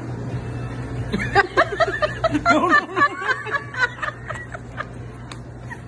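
People laughing in a run of short, quick bursts that starts about a second in and tails off near the end, over a low steady hum.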